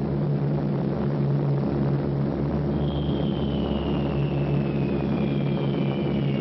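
Steady drone of aircraft engines. About three seconds in, a thin whistle begins and slowly falls in pitch: the whistle of a falling bomb.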